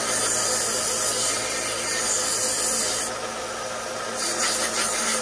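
Bench belt sander running, grinding down the head of a handle pin on a 1960s Ulster camping knife pressed against the belt, so the pin can be pulled out. A steady motor hum under a loud grinding hiss that eases for about a second midway.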